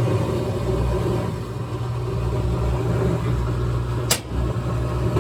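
GE top-load washing machine running its cycle: a loud, steady motor hum, with one sharp click about four seconds in.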